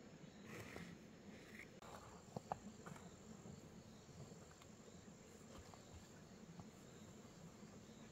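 Faint outdoor ambience with a steady high-pitched insect drone. A couple of short soft knocks come about two and a half seconds in.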